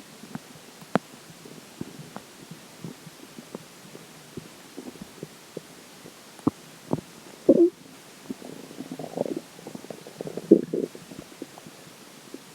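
Human stomach gurgling as water moves through it: scattered small pops and clicks, with longer watery gurgles that are loudest about seven and a half and ten and a half seconds in.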